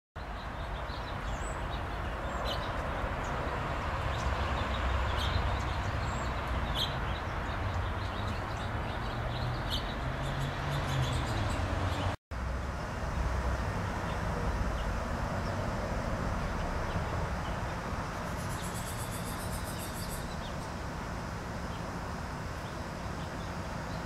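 Small finches chirping with short, high calls, scattered through the first half and a fast high trill about three-quarters through, over a steady low rumble of background noise. The sound drops out for a moment about halfway.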